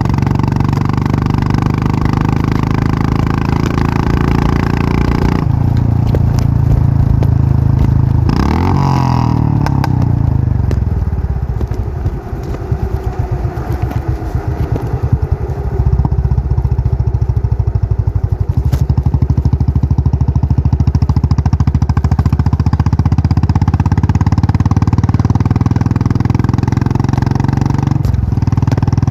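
Royal Enfield Classic 500's single-cylinder engine running, its exhaust beating in an even rhythm. About eight seconds in the revs sweep up and down, the sound eases off for a few seconds, then it settles back into a steady run.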